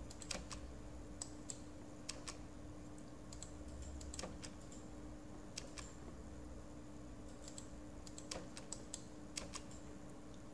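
Irregular, scattered clicks of a computer mouse and keyboard keys while drafting in AutoCAD, over a faint steady hum.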